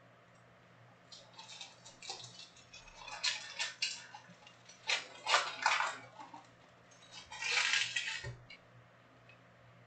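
Foil wrappers of sealed Panini Prizm trading-card packs crinkling as they are handled and moved, in several bursts of crackly rustling, with a soft thud near the end.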